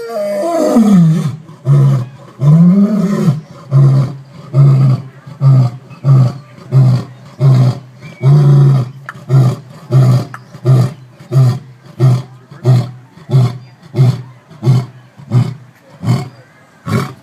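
African lion roaring: two long, drawn-out roars, then a long run of short grunting roars, about two a second, coming slightly faster toward the end.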